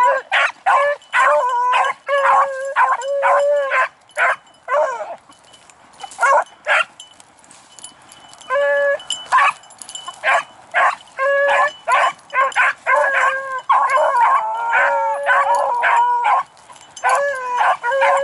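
Hunting beagles baying on a scent track they have just struck, giving a steady run of short, repeated bays. Several voices overlap in the second half.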